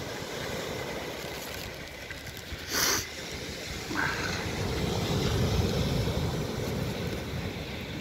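Wind buffeting the microphone, building to a louder low rumble in the second half, with a short hiss about three seconds in.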